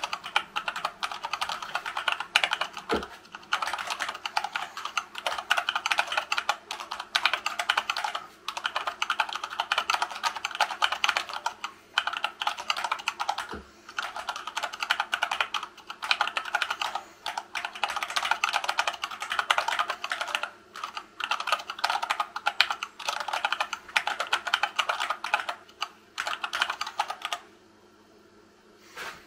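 Fast touch-typing on a Dactyl Manuform split keyboard with silicone-lubed Gateron Brown tactile switches in a wood-filament case: a dense, even clatter of keystrokes at about 68 words a minute that stops about 27 seconds in.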